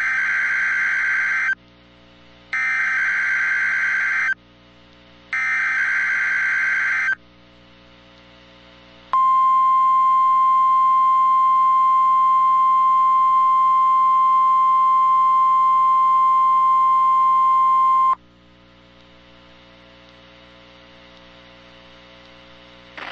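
NOAA Weather Radio Required Weekly Test: three short bursts of warbling digital SAME header data about a second apart, then a steady 1050 Hz warning alarm tone held for about nine seconds that cuts off suddenly, leaving a faint low hum from the receiver.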